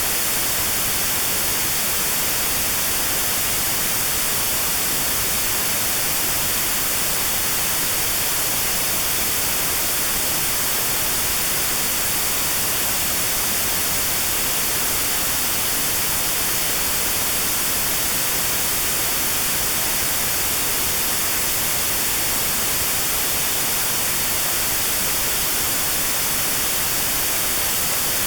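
Steady synthetic white noise with a narrow notch cut out around 4 kHz, a notched-noise tinnitus therapy sound. It is an even hiss, brightest in the high end, that never changes.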